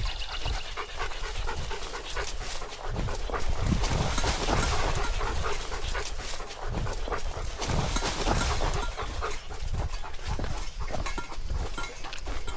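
A dog panting close by: a run of quick, uneven breaths.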